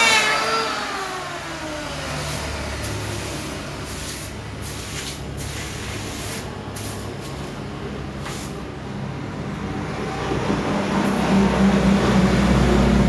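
Electric hand planer winding down after being switched off, its whine falling steadily in pitch over about two seconds. Wood shavings are then swept off the slab in short scraping strokes, and a low steady hum rises and grows loud near the end.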